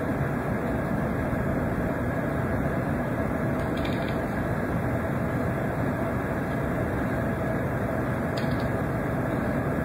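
Steady rushing noise with a faint hum. Through it, a long-haired cat chatters faintly and briefly about four seconds in, and again near the end.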